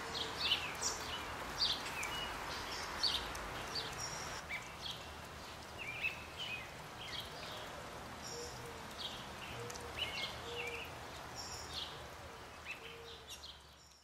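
Several birds chirping and calling over a steady background noise, fading out near the end.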